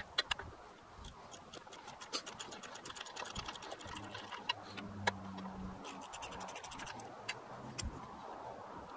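Ratchet wrench with a 10 mm socket clicking in fast runs as it backs off the nut holding a zinc anode, the bolt held with a second socket: one longer run in the first half and a shorter one later, with scattered single clicks.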